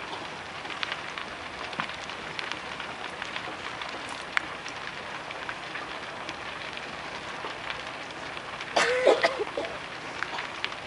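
Big wooden temple structure burning, its fire crackling steadily with sharp pops now and then. About nine seconds in, a person gives a short, loud shout.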